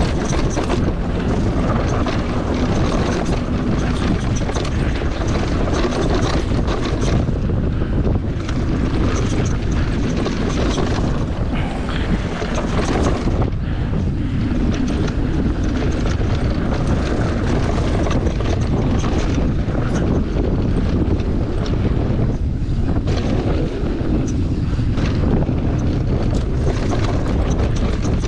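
Wind buffeting the microphone of a mountain bike riding fast down a dirt trail, with the tyres rolling over rough ground and the bike rattling over rocks in many short knocks.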